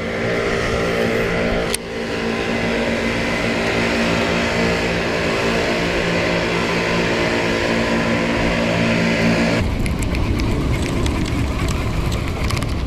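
A boat motor running at a steady pitch. About ten seconds in it gives way to a rough rumble and crackle, like wind on the microphone.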